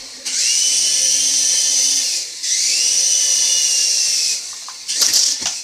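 Small toy quadcopter's motors and propellers whining in two high-pitched bursts of about two seconds each, the second rising in pitch as it spins up. A few knocks and clatter near the end.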